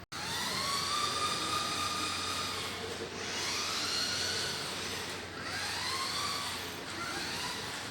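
Toy RC monster truck's small electric motor and gears whining as it is driven, speeding up and easing off about four times.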